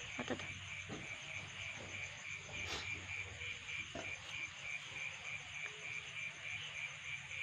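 Insects chirping in a steady, evenly repeating pulse, with one brief sharp click a little under three seconds in.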